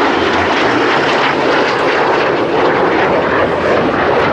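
AMX attack jet's single Rolls-Royce Spey turbofan at high power as the jet flies past in a banked turn: a loud, steady jet roar.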